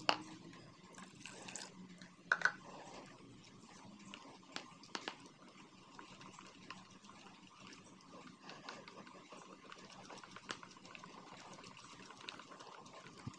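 A wire whisk stirring thin liquid crepe batter in a plastic bowl: faint sloshing with light ticks of the whisk against the bowl, a few of them louder.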